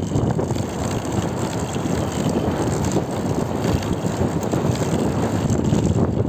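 Wind buffeting the microphone on a moving bicycle: a steady low rumble with faint scattered ticks.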